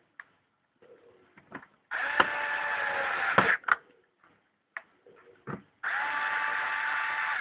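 A small electric motor-driven tool running in two bursts, the first lasting about a second and a half and the second starting near the end, with short knocks and clicks between them.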